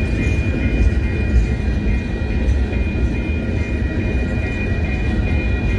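Freight train of covered hopper cars rolling past, a steady heavy rumble of wheels on rail with a steady high-pitched tone running over it.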